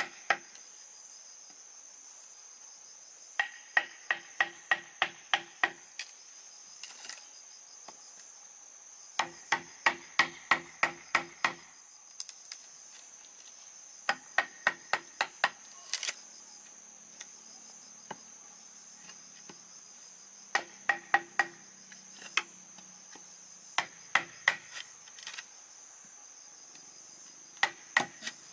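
Bursts of quick, evenly paced tool strikes on bamboo, about three a second, in runs of five to ten separated by short pauses, over a steady high chirring of insects.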